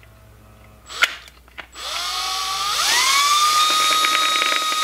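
Cordless drill spinning up about two seconds in, its whine rising in pitch and then holding steady, with the bit turning through the drilled hole in the bottom of a tin can. A light click comes about a second in.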